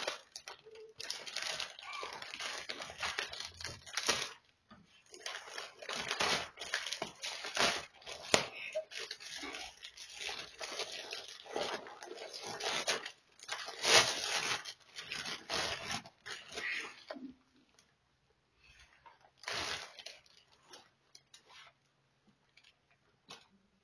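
Clear cellophane gift wrap being crinkled and torn open by hand. The crackling and ripping is irregular and dense, and near the end it thins out into a few scattered crinkles.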